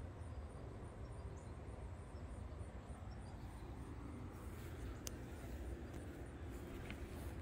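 Faint outdoor background with a steady low rumble; from about halfway it is joined by light rustling and one sharp click about five seconds in, as the handheld camera is moved.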